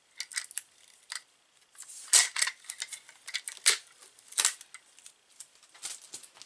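Plastic parts of a camera handle grip being handled and fitted: an irregular run of sharp clicks and knocks, the loudest about two seconds in and again near four seconds.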